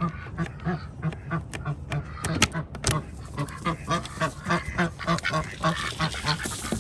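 Domestic ducks quacking over and over, about three quacks a second, with a few sharp clicks about two to three seconds in.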